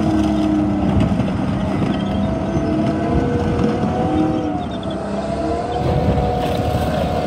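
A large vehicle engine running steadily, its pitch drifting slowly up and down as the revs change.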